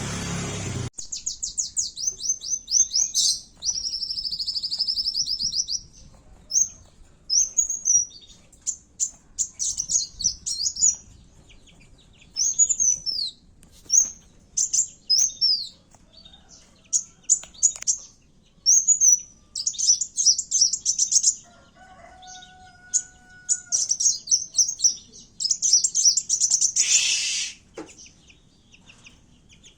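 Kowul bird singing its fighting song, the call used to lure and provoke rival birds: bursts of rapid, high-pitched chattering trills and short repeated phrases with brief pauses between them. A short, lower steady tone comes about two-thirds of the way in, and a harsh buzz comes near the end.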